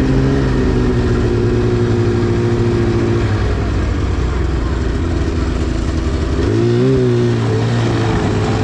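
2010 Arctic Cat CFR 1000 two-stroke snowmobile engine running at a steady low speed. About seven seconds in it gives a brief rev that rises and falls back.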